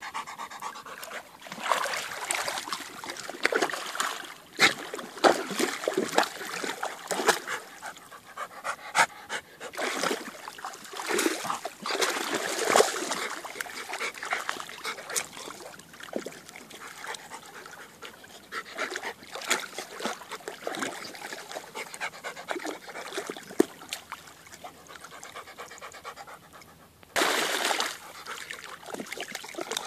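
Yellow Labrador retriever panting while wading and splashing through shallow pond water, with many sharp cracks and snaps as it bites and mouths a wooden branch. About 27 seconds in there is a louder splash lasting about a second.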